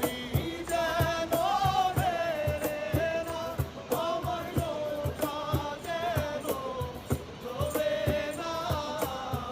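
Background music: a sung melody over a steady drum beat.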